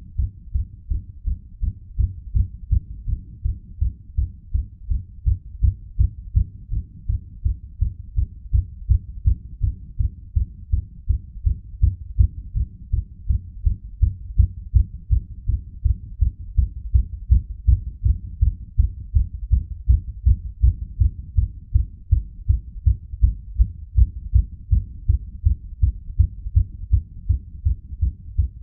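A person's heartbeat beating fast and steady: an even train of low, dull thumps, the heart racing under strain.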